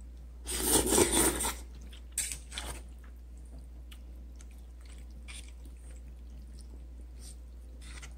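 Instant noodles being slurped off chopsticks: one loud slurp about half a second in, lasting about a second, followed by a couple of shorter slurping sounds. Then quiet chewing with a few light clicks.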